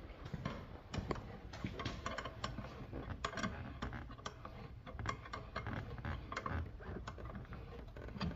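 Irregular small metallic clicks and taps of hand tools working on a car battery terminal post.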